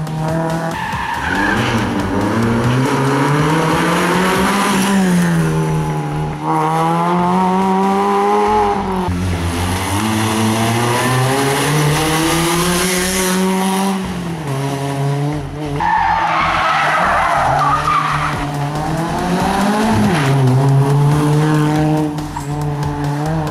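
Rally car engine revving hard, its pitch climbing and then dropping again and again as it shifts gears and lifts off. About sixteen seconds in there is a two-second stretch of tyre squeal.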